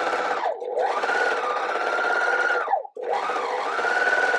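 Bernina overlocker running as it stitches along the edge of neoprene, a steady motor whine that sags and picks up again as the pedal is eased and pressed. It stops abruptly about three seconds in and starts again straight away.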